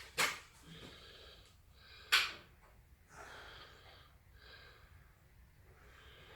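Recoil starter cord of the sawmill's Honda petrol engine pulled twice, about two seconds apart, each pull a short rasp, with the engine not yet catching.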